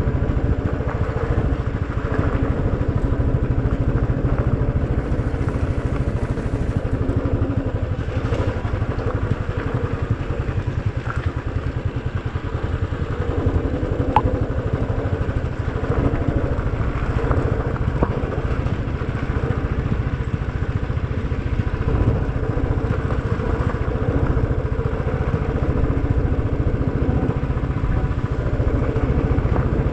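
Motorcycle engine running steadily while riding over a rough gravel track, with faint clatter from the loose surface.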